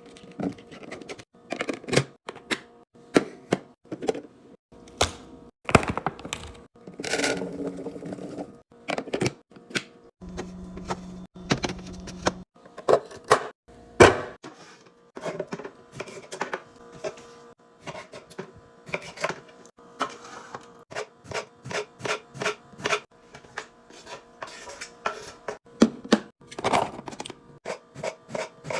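Containers and groceries being handled and set down while restocking a fridge: irregular clacks, taps and knocks of plastic and glass, with a run of quick, even clicks in the second half.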